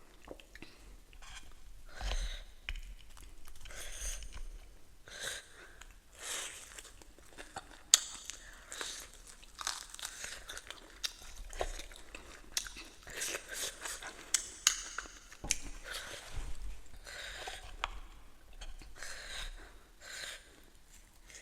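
Close-miked eating: irregular wet chewing and crunching of food, with a sharp click about eight seconds in.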